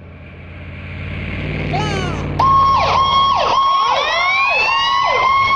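Cartoon fire-truck sound effect: a low engine rumble grows louder as the truck comes in, then about two and a half seconds in a siren starts suddenly, a held tone broken by quick downward dips about twice a second, layered with rising wails.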